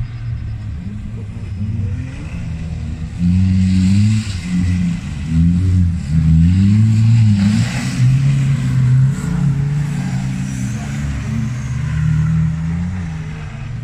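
Autocross race cars driving through a dirt hairpin. Their engines rev up and drop back again and again through gear changes and throttle lifts. It is loudest between about three and nine seconds in, as a car passes close.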